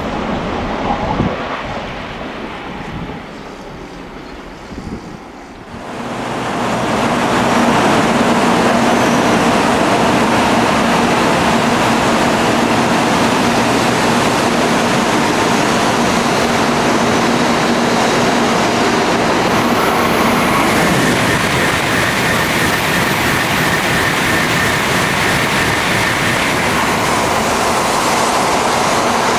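Tokaido Shinkansen N700S sixteen-car train passing through a station at high speed without stopping. The sound is quieter at first, swells sharply about six seconds in, then stays loud and steady as the train runs past.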